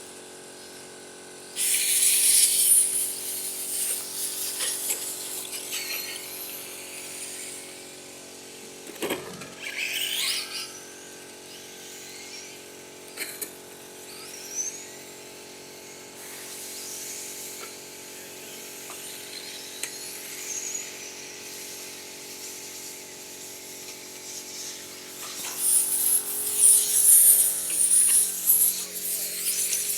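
Remote-control cars racing on a track, their motors whining high as they pass, the pitch rising and falling; the loudest passes come about two seconds in, around nine to ten seconds, and over the last few seconds. A steady low hum runs underneath.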